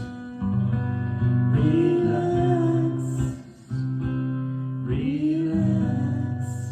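Acoustic guitar chords strummed in a song's instrumental passage, with a melody line swelling over them twice and a short drop in level just after halfway.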